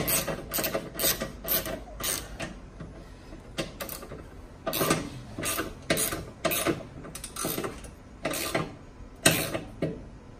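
Hand ratchet wrench with a 17 mm socket clicking as it is swung back and forth to tighten the skid-plate bolts, in quick runs of clicks with a short pause in the middle.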